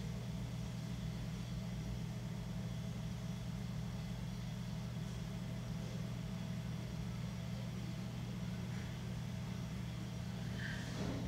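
Electric potter's wheel motor running at steady speed, a low even hum. A brief faint squeak comes near the end.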